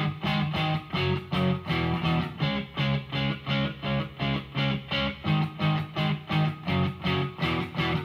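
Guitar played through a Behringer V-Amp Pro amp-modelling processor on a clean sound: chords strummed in a steady, even rhythm of short strokes.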